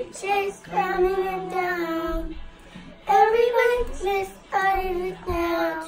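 A child singing a song in held phrases, with short breaks between them and no instruments behind.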